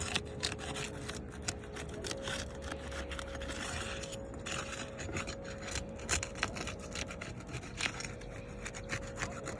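Asphalt roof shingles being worked loose by hand and tool: irregular scraping and many small clicks and ticks, with a faint steady hum underneath.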